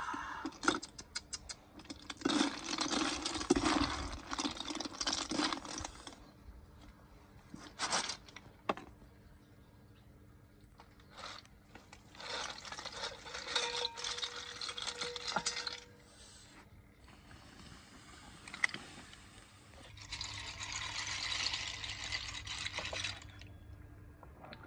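Cooked snails in their shells being stirred in a wok and tipped with their cooking liquid into a mesh strainer: shells rattling against metal and liquid pouring, in three bursts of a few seconds each with scattered clicks between.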